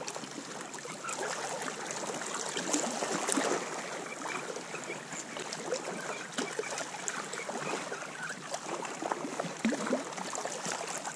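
Sea water washing and trickling among shoreline rocks, an even wash of noise dotted with many small clicks and crackles.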